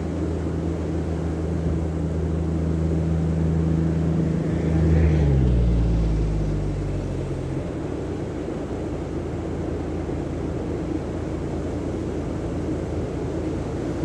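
A low engine drone passes by: it swells, its pitch drops about five seconds in, and it fades out a couple of seconds later. Surf and wind make a steady rushing noise under it.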